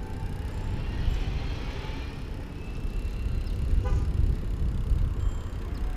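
Wind buffeting the microphone of a camera on a bicycle rolling fast over asphalt, a steady low rumble. A few faint, brief high tones come and go, and there is a short rattle about four seconds in.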